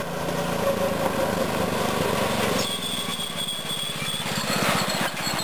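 Mini bike's small single-cylinder engine running as the bike rides up, its firing pulses becoming distinct from about halfway in as it comes closer.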